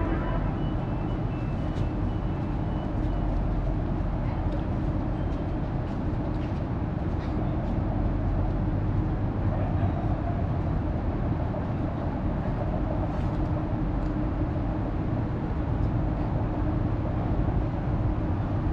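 Steady low rumble and hum of a light-rail train standing at a station platform, with a few faint clicks.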